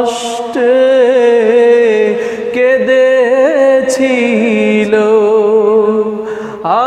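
A man's voice singing a slow Bengali Islamic song (gojol), drawing the words out in long held notes that waver in pitch.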